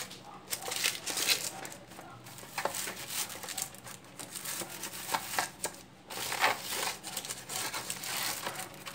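Parchment paper crinkling and rustling in irregular bursts as hands press and crease it into the corners of an aluminium baking tray.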